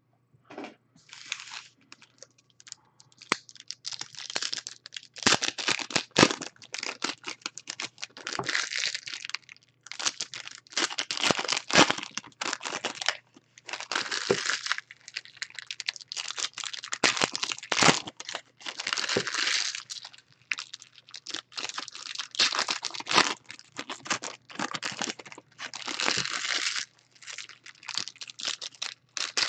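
Foil wrappers of Panini Playoff football trading-card packs being torn open and crinkled by hand, in many irregular bursts of ripping and crackling.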